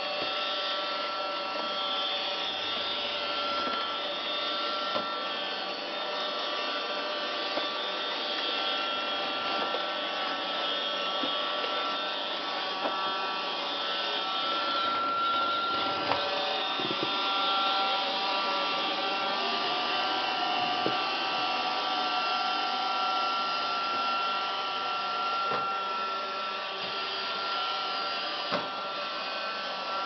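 Roomba robot vacuum running on carpet: a steady whine from its motors and brushes, with a few scattered sharp clicks.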